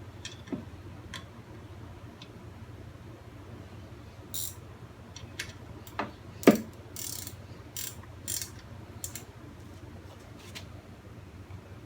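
Socket ratchet clicking in short spells as the oil drain plug is tightened back in, with a few sharp metallic knocks, the loudest about six and a half seconds in.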